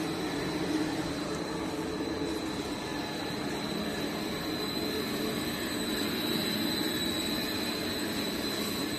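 Sigma-blade mixer running empty under vacuum, its blades turning: a steady machine hum with a constant high whine.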